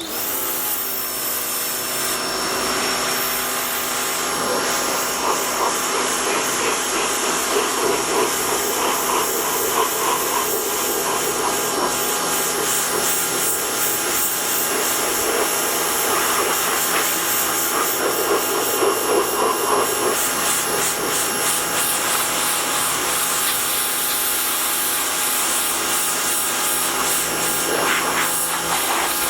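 Harbor Freight Portland electric pressure washer starting up and then running steadily, its motor and pump whining under the hiss of the water jet spraying a car.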